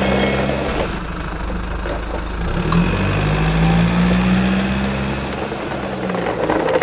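Truck-engine drone for the toy dump trucks as they set off across the dirt, running in two long stretches with a short break about two and a half seconds in.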